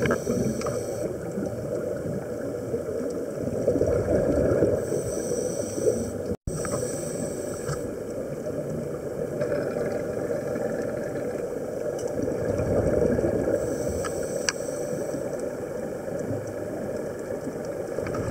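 Muffled underwater wash through a camera housing, with a scuba diver's regulator breathing: a hiss that comes and goes every few seconds over the rumble of exhaled bubbles. The sound cuts out for an instant about six seconds in.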